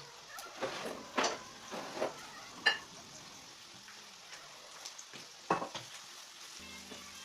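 Food sizzling in hot oil in a pan, with a utensil stirring and knocking against the pan several times.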